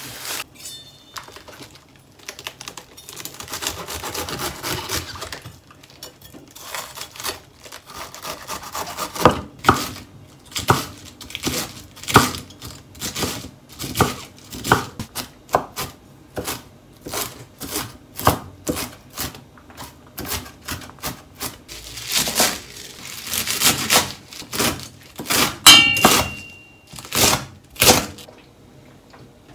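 Kitchen knife finely chopping cabbage and then garlic chives on a wooden cutting board: a steady run of sharp knife strikes against the board, about two a second.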